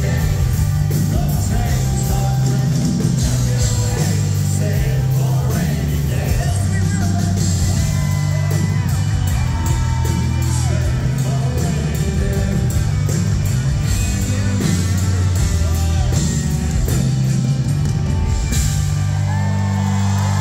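Live country band playing with lead singing over a heavy bass line and a steady drum beat. The drums drop out about a second and a half before the end, leaving bass and voices.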